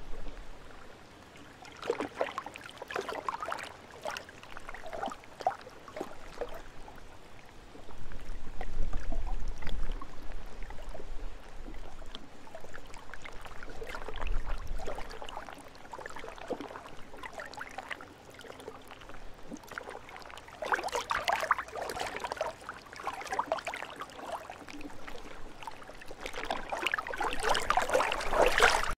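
Small lake waves lapping and splashing in uneven clusters, busiest near the end, with a low wind rumble on the microphone now and then.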